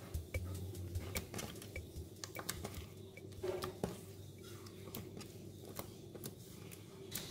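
Clear green slime being stretched, folded and squeezed by hand, giving irregular sticky clicks and pops.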